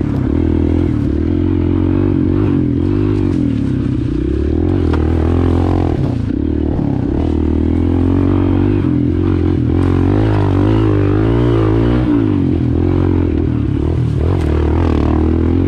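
Kawasaki KLX pit bike's small four-stroke single-cylinder engine running continuously under load, its revs rising and falling over and over with the throttle. Heard from the rider's seat, with the bike clattering over bumps.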